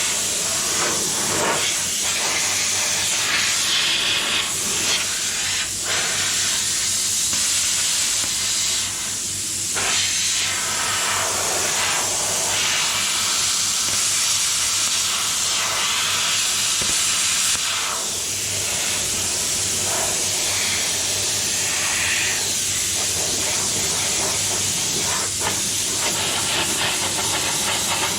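Plasma cutter cutting sheet steel: a loud, steady hiss of air and arc that stops abruptly near the end as the trigger is released.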